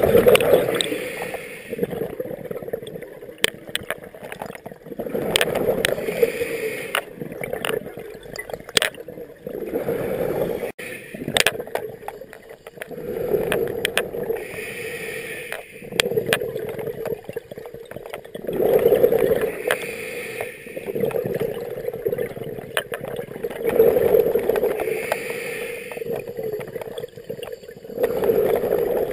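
Scuba diver breathing through a regulator underwater: a gurgling rush of exhaust bubbles on each exhale, with a hiss on the inhales, repeating about every four to five seconds.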